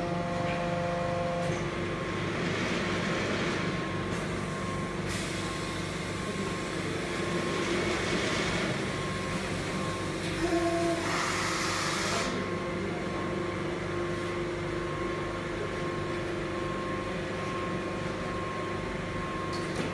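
Machinery of a melamine lamination hot press line running: a steady hum with several held tones. About five seconds in a long hiss starts, grows brightest around eleven seconds in, and stops abruptly about twelve seconds in.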